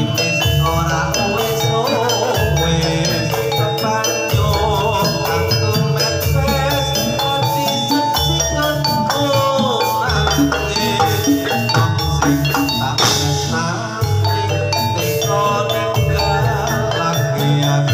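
Live Javanese gamelan music for a jathilan horse-trance dance: metallophones struck in fast, repeating runs over drumming and deep bass notes, with a voice singing.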